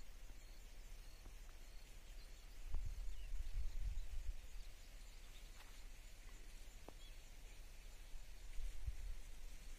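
Outdoor ambience: a low rumble of wind on the microphone that gusts up about three seconds in and again near the end, with a few faint, short bird chirps.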